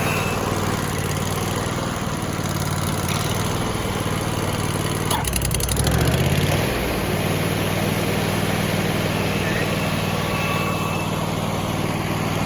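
Vermeer SC292 walk-behind stump grinder's Kohler engine running steadily. About five seconds in there is a quick rattling of clicks and the engine note dips and climbs for a second or two as the cutter wheel is engaged, then it settles back to a steady run.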